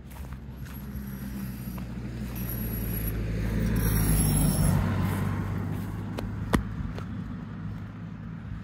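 A motor vehicle passing on the road: its noise builds to a peak about four seconds in and then fades, over a steady low drone. A single sharp tick comes about six and a half seconds in.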